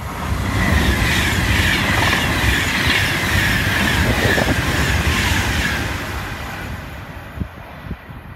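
A Virgin Pendolino (Class 390 electric tilting train) passing through at speed: a loud rush of wheels on rail and air, with a high whine that falls slightly in pitch. It fades away over the last couple of seconds.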